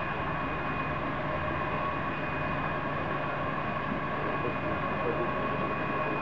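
SNCF 141R 840 steam locomotive and tender rolling slowly past, running light, with a steady hiss of steam and a thin, high, steady whine and no distinct chuffs.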